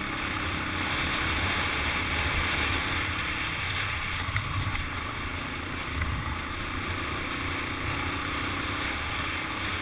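Dirt bike engine running at low speed under a steady rush of wind noise on the action-camera microphone, with a few light knocks along the way.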